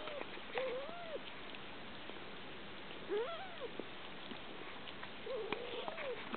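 Small kittens mewing while nursing: several short, thin mews a couple of seconds apart, each rising and falling in pitch.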